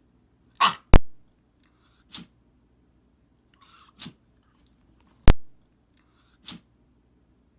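A dog sneezing several times, a short burst every one to two seconds, with two loud sharp clicks, about a second in and past the middle, as the loudest sounds.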